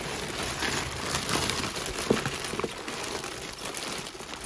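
Grey plastic mailing bag crinkling and rustling as hands squeeze and pull at it, with a sharper click about two seconds in.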